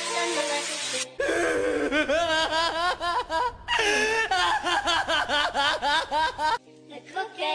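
The tail of a music track, then a man's voice laughing in long wavering runs for about five seconds. The laughing cuts off abruptly.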